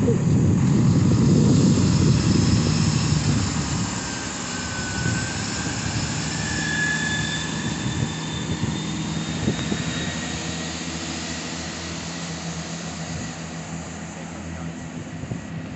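GWR Turbo diesel multiple unit pulling out past and away: a low engine and wheel rumble that fades steadily as it recedes, with a few brief high-pitched tones a few seconds in.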